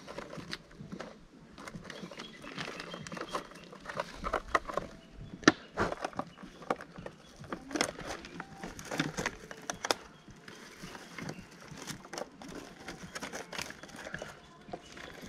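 Rustling and crinkling of a bag being rummaged through by hand, with irregular light clicks and knocks of gear being handled.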